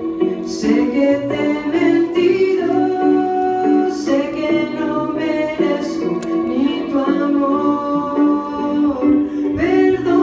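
A woman singing a Spanish-language song into a handheld microphone, with sustained, gliding sung notes over a steady instrumental accompaniment.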